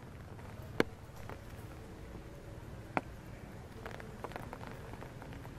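Light rain: scattered raindrops dripping and pattering on leaves, with two sharper drops about a second in and about three seconds in, over a steady low background noise.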